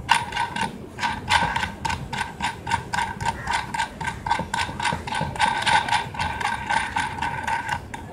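Ratcheting hand tool clicking fast and evenly, several clicks a second with a metallic ring, as a nut is run down onto a bolt. The clicking stops shortly before the end.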